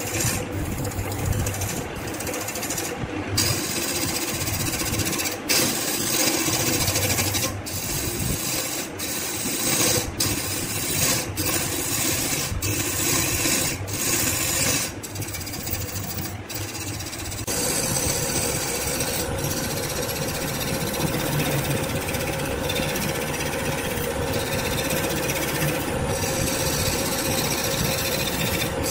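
Wood lathe spinning a large blue resin-and-wood blank while a hand-held gouge cuts into it, a continuous scraping cut over the lathe's running motor. The cut has many brief breaks in the first half and runs steadier from about two-thirds of the way in.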